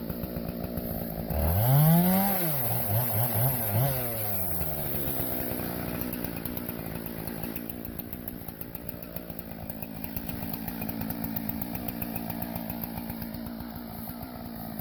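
Husqvarna 576 XP two-stroke chainsaw idling. About a second and a half in it is revved high once, then blipped three or four times before dropping back to a steady idle.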